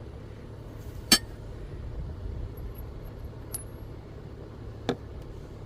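Three sharp metallic clinks of tools and mower-blade hardware being handled, the first about a second in the loudest and ringing, the others near the middle and end fainter.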